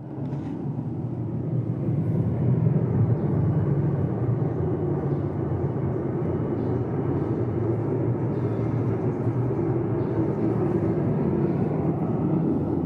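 A steady, low rumbling hum with no breaks, starting right after a sudden cut.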